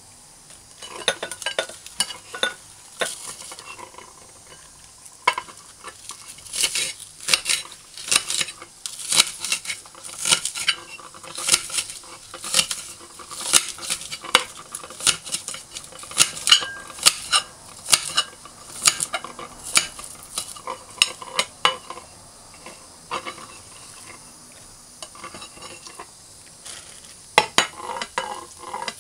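Kitchen knife chopping scallions on a metal tray: a run of sharp, irregular knocks of the blade against the metal, a couple a second. The knocks thin out for the last third, with a short quick cluster near the end.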